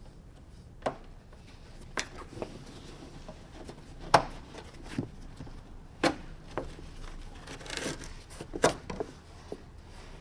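Sharp knocks and clicks with a little scraping, as parts and tools are handled while a convertible top is taken apart. There are about half a dozen separate knocks; the loudest comes about four seconds in.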